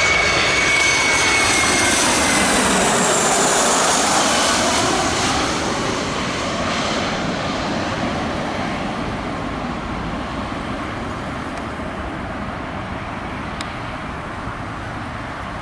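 Boeing 737-300's CFM56 turbofan engines on final approach passing low overhead: loud jet engine noise with a high fan whine that drops in pitch about two seconds in as the aircraft passes, then the noise fades steadily as it flies away toward touchdown.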